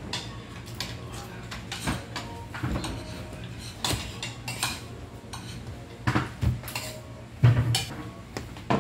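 Cutlery clinking and scraping against plates and bowls while eating, in a string of irregular clicks with the loudest a little past seven seconds in.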